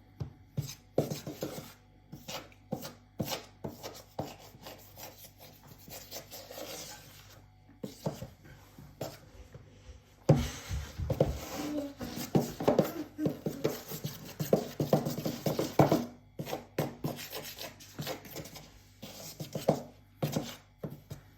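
A spoon scraping and stirring round a bowl, mixing a stiff, crumbly dough of cornflour and shaving foam in repeated rasping strokes. The strokes grow louder and more vigorous about halfway through.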